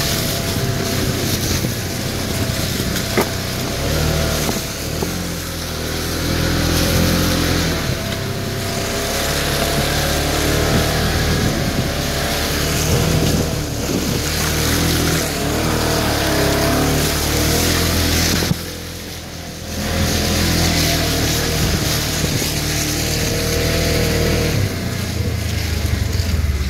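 Polaris Ranger side-by-side engine running and revving under load, its pitch rising and falling, as the tyres churn and splash through mud and wet ground. The engine and tyre noise drops briefly about two-thirds of the way through.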